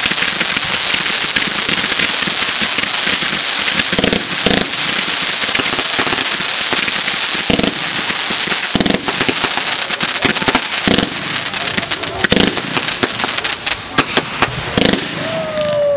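Fireworks display: ground fountains spraying with a steady loud hiss, broken all through by sharp pops and crackles. Near the end the hiss dies away and separate bangs stand out as shells burst overhead.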